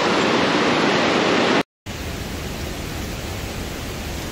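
Steady rushing of a stream or waterfall running high. It drops out for a moment under halfway through and comes back duller, with more low rumble.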